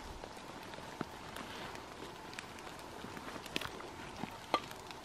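Footsteps and rustling through forest undergrowth, with a few sharp cracks like snapping twigs; the loudest comes near the end.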